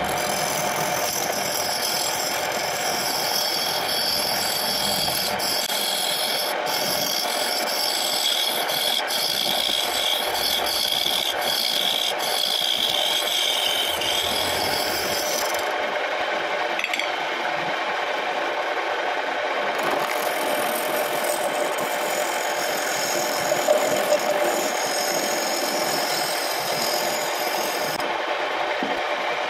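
Wood lathe running while a hand-held turning chisel cuts into a spinning guava-root blank, a steady scraping of steel on wood over the lathe's motor. The cutting eases briefly about halfway through and again near the end.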